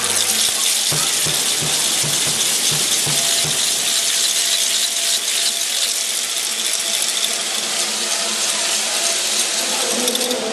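Audience applauding and cheering in a large hall, with a run of rhythmic low thumps, about three a second, for a few seconds near the start.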